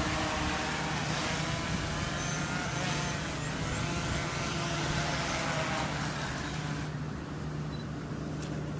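Small folding quadcopter drone's propellers running with a steady buzzing whine as it descends and settles on grass. About seven seconds in the airy rush drops away, leaving a low hum, and a few sharp clicks follow near the end.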